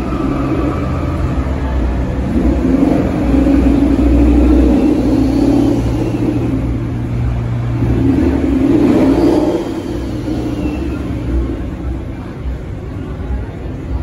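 Ford Mustang's engine running and being revved several times, the exhaust note rising and falling, echoing off the concrete of a parking garage.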